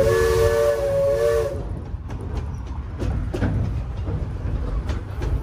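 Coal-fired steam locomotive's whistle sounding a chord of several notes at once over a hiss of steam, cutting off about a second and a half in. The train then rolls on with a low rumble and scattered knocks from the wheels.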